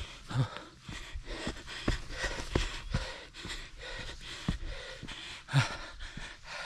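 Heavy, rhythmic panting of a hiker climbing a steep stepped mountain trail, out of breath, with the low thuds of his footsteps; two harder puffs stand out, one about half a second in and one near the end.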